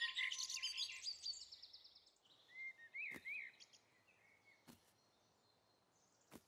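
Faint cartoon birdsong: quick high twittering that fades away over the first two seconds, then a few short chirps about three seconds in, with a few soft clicks after.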